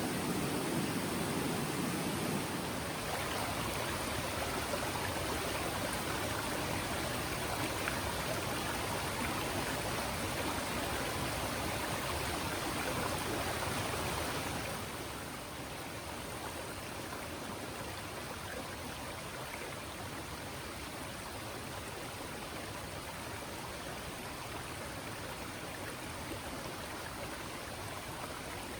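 Stream water running steadily, a continuous rush that drops somewhat in level about halfway through.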